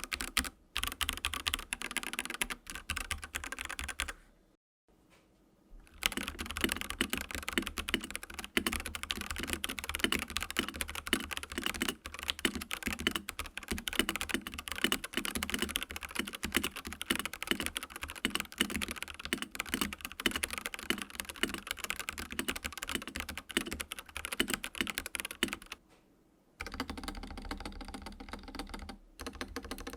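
Typing on a Dareu A87 hot-swap mechanical keyboard with its Blue Sky switches: a fast, continuous run of keystroke clacks, pausing briefly twice. The typing carries a noticeable echoing ring, which is put down to the gap between the PCB and the case.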